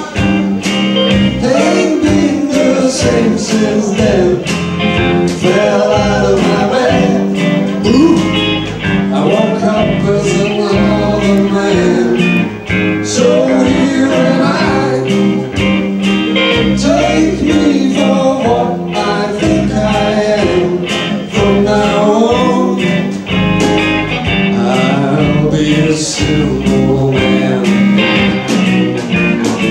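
Live rock band playing a song: electric guitars and a drum kit, with a lead vocal over them.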